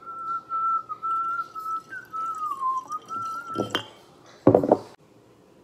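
A person whistling a wavering tune while red wine is poured from the bottle into a glass mason jar. The whistle stops about three and a half seconds in, followed by a short knock and a louder brief sound.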